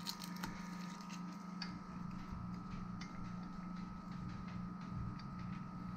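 Fortress 1-gallon ultra-quiet oil-free air compressor running with a steady low hum and a faint thin high tone above it. A few faint light clicks come and go.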